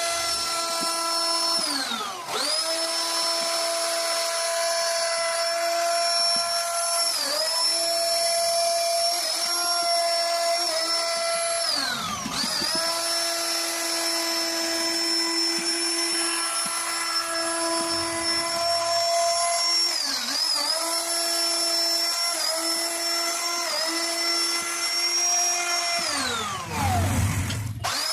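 CNC wood router's spindle running at high speed and cutting wood: a steady high-pitched whine whose pitch dips briefly several times as the bit bites into the wood. Near the end the pitch falls steeply, then quickly comes back up.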